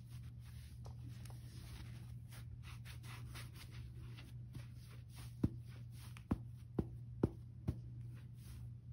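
Yellow sponges coated with Ajax powdered cleanser being squeezed and rubbed together by hand, a soft gritty scratching and crunching. Five sharp knocks fall about halfway through, over a steady low hum.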